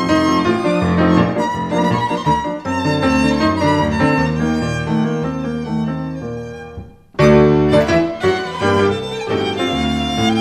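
Instrumental music led by a violin over a lower accompaniment. The phrase fades out about seven seconds in, and a new passage starts suddenly straight after.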